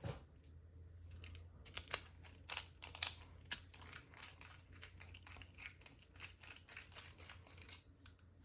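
Irregular small metallic clicks and taps of a Mul-T-Lock Garrison padlock and its parts being handled while it is taken apart after picking, with one sharp click about three and a half seconds in.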